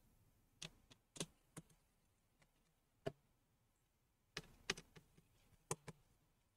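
About ten light, irregular clicks and taps of small tools and parts being handled inside an opened laptop, with near quiet between them.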